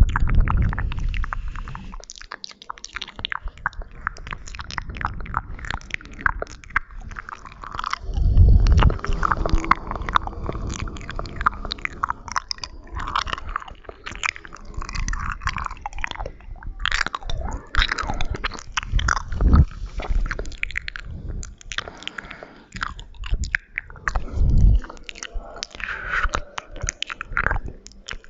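Close-miked ASMR mouth sounds: wet clicks and smacks of lips and tongue in a dense, irregular stream, with a few deeper thumps, the loudest about eight and a half seconds in.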